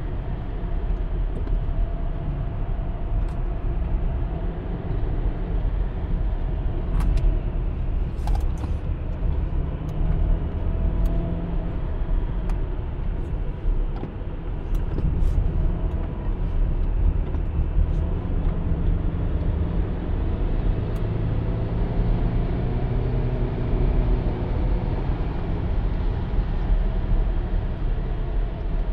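Subaru Legacy 2.0 petrol flat-four engine and tyre noise heard from inside the cabin while driving steadily on a wet road, a low, even rumble with a few small sharp clicks scattered through it.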